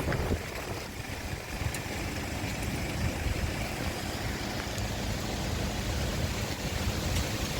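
Steady noise of heavy rain and strong wind, with a low rumble of wind buffeting the microphone.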